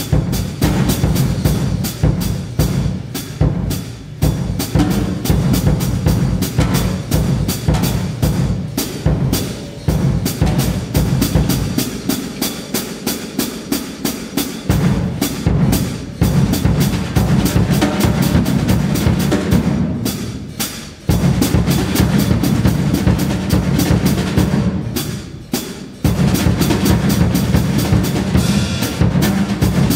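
Drum kit played in fast, dense patterns with heavy low drums underneath. The low drums drop out for a few seconds about 12 seconds in. After two brief dips, the full kit comes back in loudly, about 21 and 26 seconds in.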